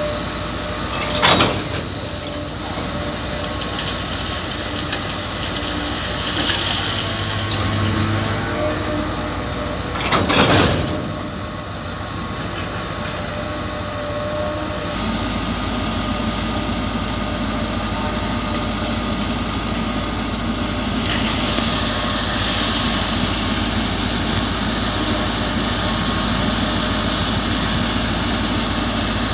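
Diesel engine of a DHW-400 heavy track maintenance rail vehicle running steadily, with two loud clanks, about a second in and about ten seconds in, the second longer, as it couples to a ballast hopper wagon. A high steady whine joins in after about twenty seconds.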